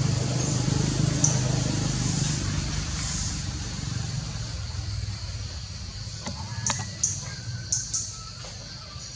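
A steady low engine-like hum that slowly fades, with a few short high chirps and a couple of clicks in the second half.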